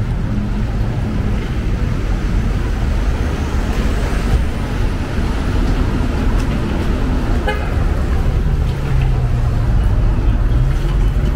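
City street traffic on wet pavement: cars passing with a steady rumble and tyre hiss, one vehicle running louder with a low engine hum from about eight and a half seconds in.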